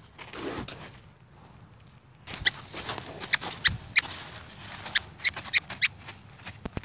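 Hoofbeats of a young Andalusian filly walking and trotting on sand footing: irregular sharp clicks and knocks that start about two seconds in.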